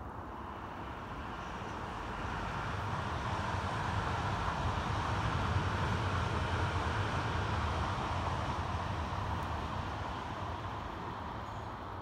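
A vehicle passing by: a steady rushing noise that swells to a peak around the middle and fades away.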